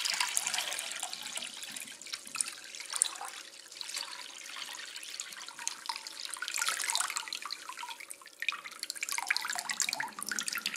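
Condensate water from a dehumidifier's tank, nearly two litres, pouring and splashing into a glass bowl. It gurgles unevenly, heavier about two-thirds of the way in and again near the end.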